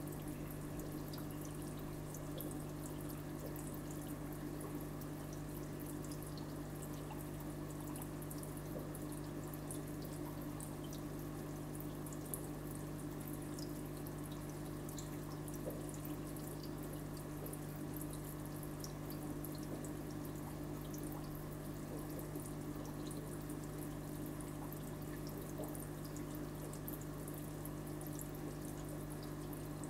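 Aquarium water circulating: a steady trickle with many small drips and bubble pops over a constant low hum.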